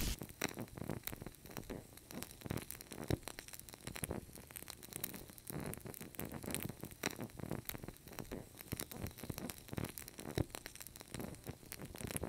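Sausages cooking over a flaring charcoal kettle grill: fat spitting and crackling in the flames, a quiet scatter of sharp, irregular pops several times a second.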